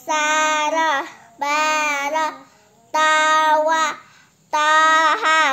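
A child's voice chanting Arabic letter-syllables from an Iqro reading primer in a sing-song recitation, four long drawn-out syllables of about a second each with short pauses between.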